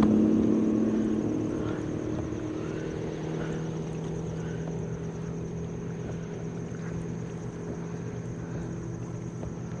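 Motorboat engine running with a steady hum, fading over the first few seconds and then holding lower.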